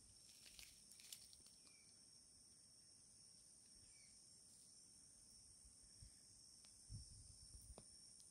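Faint, steady, high-pitched drone of insects, with a few short faint chirps and a soft low bump about seven seconds in.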